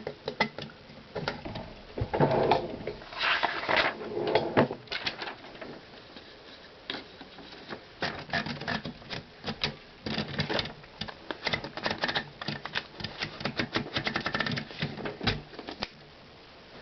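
Antique Remington No. 7 typewriter being loaded with paper: irregular clicking and rattling of the carriage and roller mechanism, in quick runs of clicks as the sheet is fed in, with some paper rustling. The clicking stops shortly before the end.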